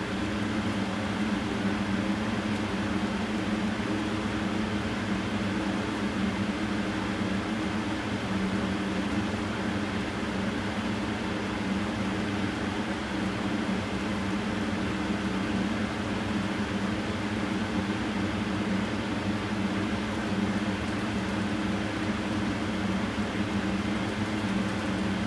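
Steady hum of a running electric fan, with a few constant low tones under an even whir.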